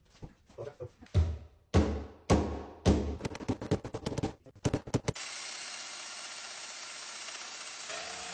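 Heavy wooden thuds and knocks as a long laminated 2x6 timber beam is worked down onto its domino-jointed base plate: about five big thumps with lighter clicks between. From about five seconds in, a steady even noise with no tone in it.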